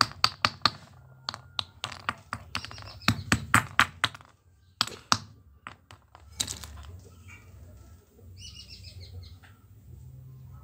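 A hand-held stone striking a brass padlock lying on a rock: sharp knocks in quick runs for about the first five seconds, a few more around six seconds in. A bird chirps briefly about eight seconds in.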